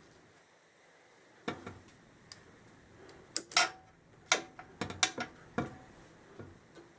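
Metal tools and metal parts clinking and knocking together in a string of sharp, irregular clicks and clanks, busiest from about three seconds in.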